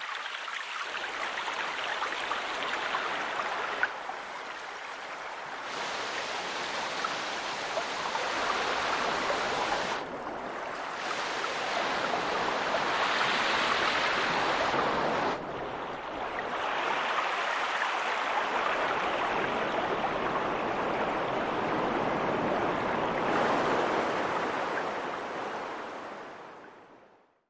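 Rushing water, like a flowing stream, as a continuous noisy background. It changes abruptly in level and tone several times and fades out at the end.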